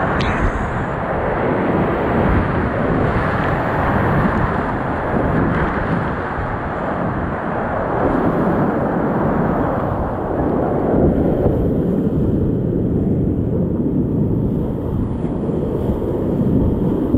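Whitewater rapids rushing and splashing around a kayak as it runs down through the rapids, a loud, steady roar of water. From about eleven seconds in the sound turns duller, losing its hiss.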